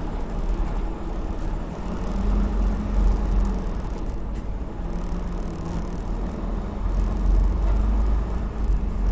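Semi truck's diesel engine running with a steady low rumble, its pitch shifting slightly a couple of times.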